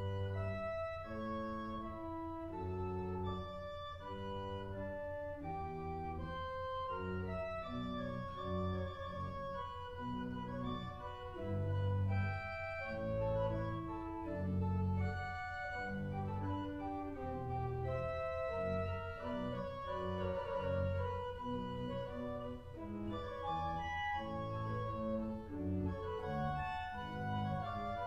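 Church organ played by hand: a slow, flowing piece of several lines of held, overlapping notes.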